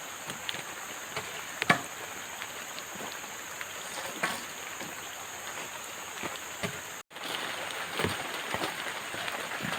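Steady water noise, like heavy rain and running water, with a thin steady high whine above it and a few scattered knocks and taps, the loudest about two seconds in. The sound cuts out for an instant about seven seconds in.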